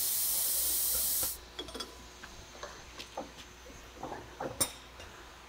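Heating torch (flame wrench) hissing loudly on the seized tank-track joints to free them, stopping sharply a little over a second in. Then light metallic clicks and a few soft knocks as a steel track tool is handled on the track.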